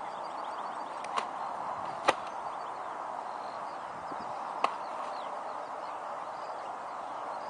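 A freshly caught 22-pound mirror carp kicking in the angler's hands, giving three sharp slaps about one, two and nearly five seconds in, over a steady outdoor hiss with faint birdsong.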